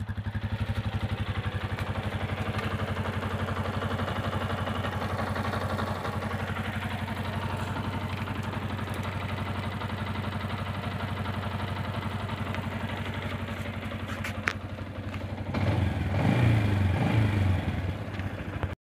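Yamaha Jupiter MX's single-cylinder four-stroke engine idling steadily with an even beat, running smooth on fresh Federal Racing full-synthetic oil. Near the end the sound gets louder and less even for about two seconds.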